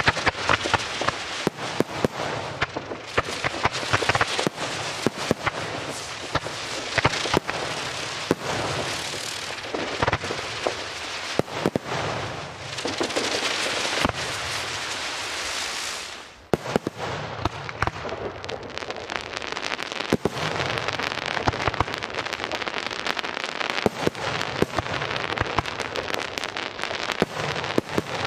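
Aerial fireworks display: a continuous barrage of shell bursts and dense crackling stars, with many sharp bangs. Around the middle comes a stretch of steady hissing that cuts off suddenly, and then the rapid crackle and bangs pick up again.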